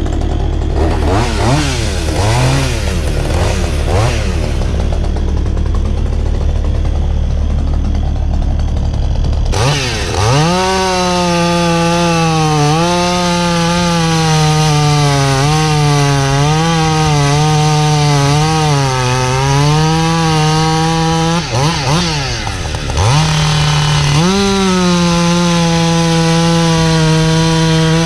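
Two-stroke chainsaw cutting through wood, its pitch sagging and recovering as the chain loads up in the cut, with a brief drop in revs about two-thirds of the way in. For the first third, before the cutting starts, a lower steady drone is heard with a few quick revs.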